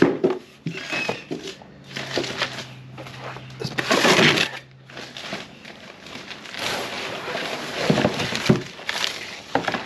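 Large cardboard box being pulled apart by hand: the cardboard scrapes and rustles in uneven bursts as the outer sleeve is lifted off the inner box, loudest about four seconds in.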